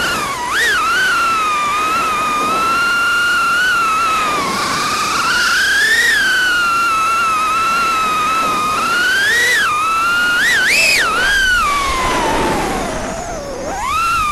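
Eachine Lizard 105S mini FPV racing quadcopter in flight, its brushless motors and propellers whining, the pitch rising and falling with the throttle. Quick throttle blips come about half a second in and again around ten seconds, and the whine dips low near the end before climbing again.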